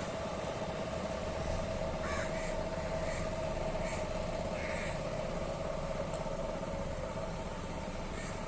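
Houseboat engine running with a steady hum, while short bird calls repeat several times about two to five seconds in.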